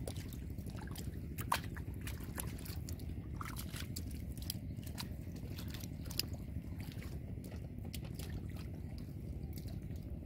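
Hands groping and splashing in shallow muddy water, giving scattered small splashes and drips, with a sharper splash about a second and a half in, over a steady low rumble.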